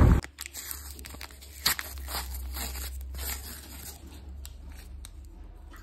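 Paper-and-foil wrapper of an ice cream cone crinkling and tearing as it is peeled off by hand, in a string of short crackles, the loudest about a second and a half in. A low steady hum runs underneath.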